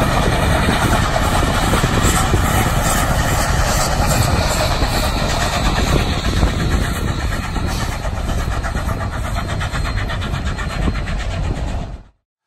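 Loud, steady engine or vehicle running sound, a dense rumble that cuts off suddenly near the end.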